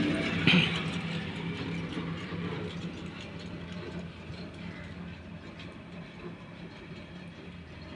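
Metal clanks and ratchet-like clicking from hands-on work at the crankshaft end of an old stationary diesel engine, with a loud clank about half a second in, over a steady low hum that slowly fades.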